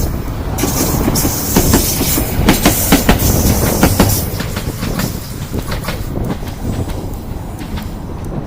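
Fujikyu 1000 series electric train passing, its wheels clacking in quick runs over the rail joints. There is a high hiss over the first half, and the sound fades as the train moves away.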